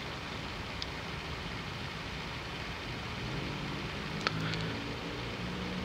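CNC router's spindle running steadily as a 1/4-inch compression bit cuts a slot in wood in a ramping spiral, with a steady noise and a brief click about four seconds in.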